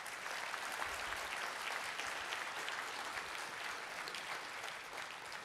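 Audience applauding, a dense patter of many hands clapping that eases off slightly near the end.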